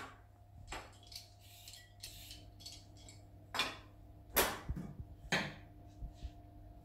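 Kitchen knife slicing through a cucumber onto a wooden cutting board: a few separate chopping knocks, one faint about a second in and three louder ones in the second half.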